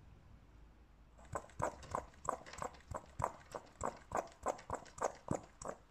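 Hand-held vacuum brake-bleeding pump being squeezed over and over, a short stroke about three times a second, starting about a second in. It is pulling vacuum on the bleed line to draw brake fluid and air out of the calipers.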